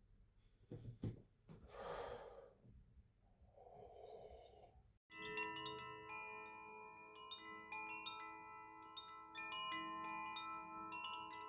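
A few faint knocks and rustles, then, after a sudden cut about five seconds in, soft chime music: struck bell-like notes ringing on and overlapping.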